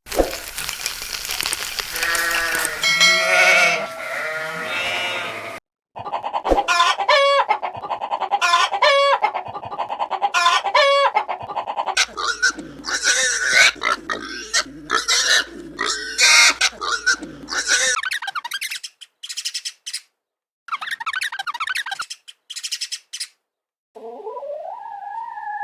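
A run of different farm animal calls in short clips joined by abrupt cuts, with brief silent gaps between some of them.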